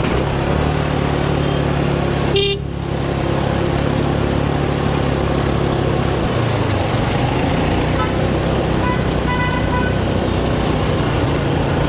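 Motor scooter engine running while riding, with wind and road noise; the engine note drops about six and a half seconds in.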